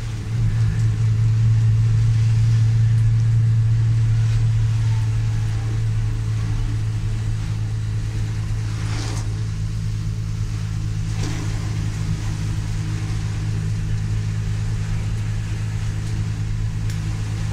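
Vehicle engine droning steadily, heard from inside the moving vehicle, over a faint hiss of heavy rain.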